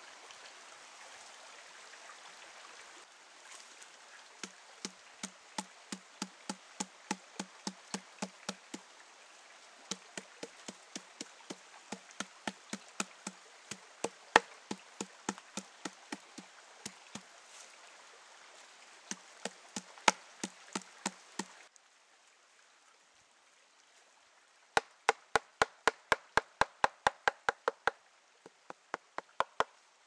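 A wooden mallet pounding raw beef on a wooden board, in runs of dull knocks about four a second, with a stream running in the background. Near the end, after the stream sound drops away, the knocks come sharper and louder.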